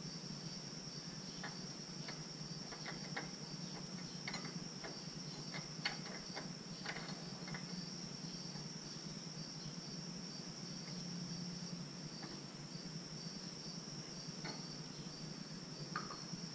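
Crickets chirping steadily in a high, pulsing trill, with scattered light clicks and taps of metal tools and parts being handled.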